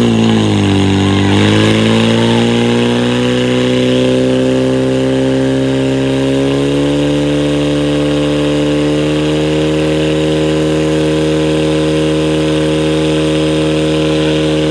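Portable fire pump's engine running at high, steady revs while it drives water through the attack hoses. It dips and then climbs about a second and a half in, and rises a little again about six seconds in.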